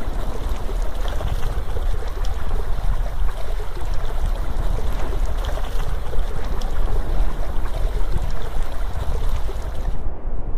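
Steady rushing water like a waterfall, with a deep rumble under it. About ten seconds in, the hiss cuts off suddenly and only a duller rumble remains.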